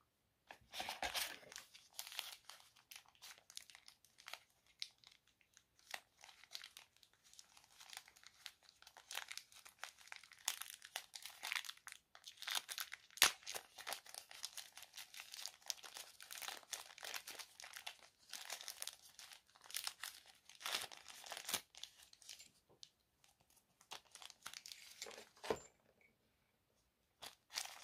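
Clear plastic bag crinkling and rustling in the hands as it is worked open and the USB-C cable inside is pulled out, in dense irregular crackles with one sharper click about halfway.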